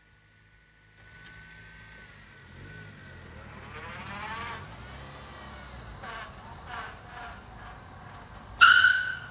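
Toyota Corolla's four-cylinder engine revving up as the car accelerates, with a few clicks. About 8.5 seconds in comes a sudden loud, short tire squeal as the car is braked hard to test its newly replaced brake master cylinder.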